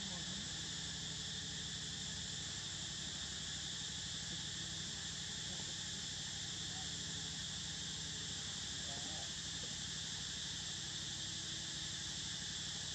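Steady chorus of insects such as crickets or cicadas, an unbroken high buzz that holds an even level throughout.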